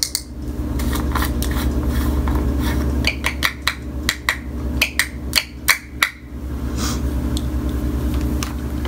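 A quick run of about a dozen sharp clicks and taps of a plastic loose-setting-powder jar and its lid being handled, over a steady low hum.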